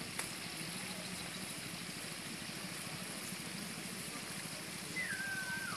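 Steady outdoor background noise with a faint low hum, and a short whistle-like tone falling in pitch near the end.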